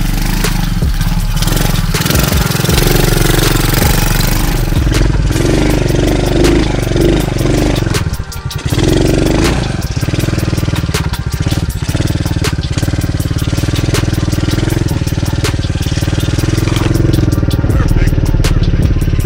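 Tao Tao DB14 110cc four-stroke single-cylinder dirt bike engine running under way, revving up and down with the throttle, briefly easing off about eight seconds in, then running more steadily.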